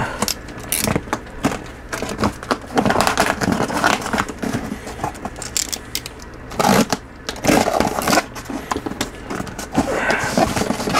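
Cardboard shipping box being handled and opened: irregular scrapes, crackles and knocks of cardboard flaps and sides.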